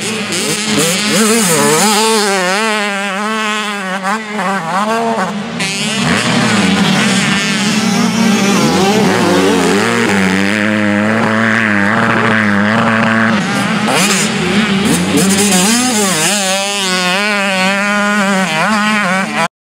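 Supermini motocross bikes' engines revving hard, the pitch climbing and dropping again and again as riders work the throttle and shift over jumps, with a steadier engine drone underneath. The sound cuts off suddenly near the end.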